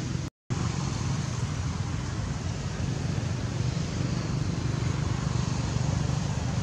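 Steady low rumbling outdoor background noise, cutting out for a moment just after the start.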